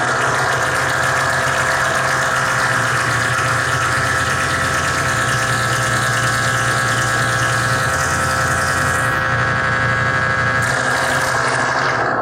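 Harsh noise music performed live: a dense, steady wall of hiss and drone with a band of held, whining tones and a low hum underneath.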